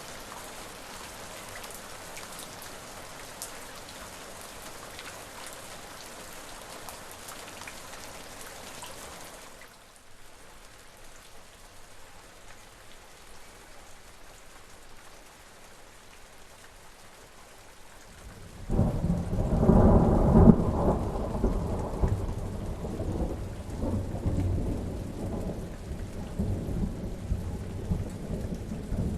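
Steady rain hissing, which switches abruptly to softer rain about a third of the way in. About two-thirds in, a loud roll of thunder breaks and rumbles on, slowly easing off under the rain.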